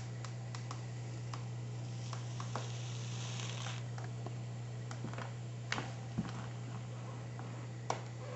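Steady low electrical hum, with scattered light clicks and taps and a brief hiss from about two to four seconds in.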